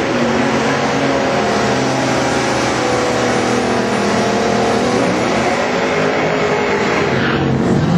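Two Buick Grand Nationals' V6 engines running at full throttle down a drag strip, side by side in a head-to-head pass, a steady engine note over a wide hiss.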